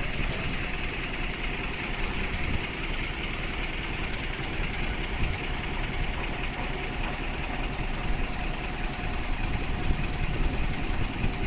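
A vehicle engine idling close by over steady street traffic noise, with a faint constant whine running through it.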